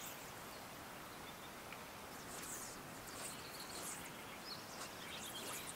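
Faint open-air ambience: a steady soft hiss with a few brief, high chirps of small birds scattered through it.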